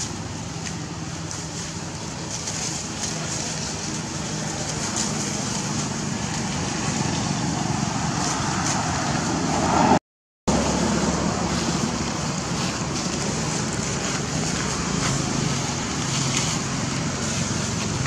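Steady outdoor background noise with a low hum, like distant road traffic. A short higher sound comes about nine and a half seconds in, and the sound cuts out for a moment at ten seconds.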